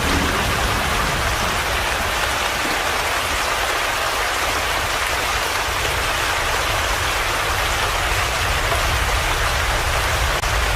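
Steady rain falling, an even dense hiss with a low rumble beneath it.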